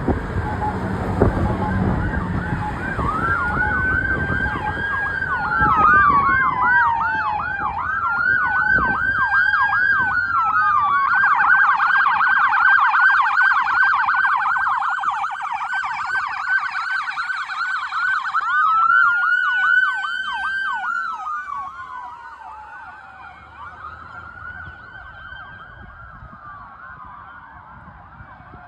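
Electronic sirens of responding fire-department apparatus, switching between a slow rising-and-falling wail and a rapid yelp, with heavy vehicle engine rumble in the first few seconds. After about 21 seconds the sirens fade as they move away, ending in a faint wail.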